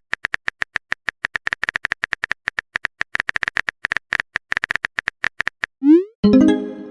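Rapid, irregular clicks, about eight to ten a second, like a typing sound effect; near the end a quick rising blip is followed by a loud pitched electronic chime that fades away.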